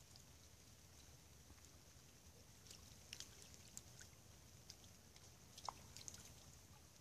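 Near silence: faint ambience on a snowy riverbank, a low steady rumble with a few soft ticks scattered through it.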